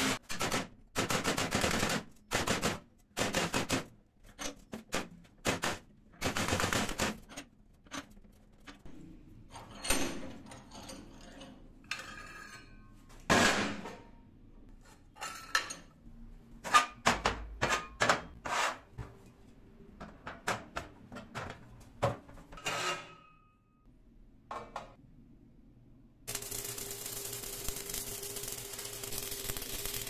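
Steel strip being hammered over a bench vise: a quick run of sharp metallic strikes, then scattered clanks and knocks of metal pieces. For the last four seconds or so, the steady crackling hiss of stick (arc) welding.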